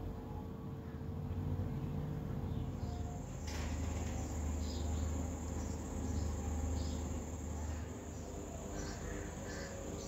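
Steady low background hum with short high chirps repeating about once a second, joined by a faint steady high whine, and a single click near the middle.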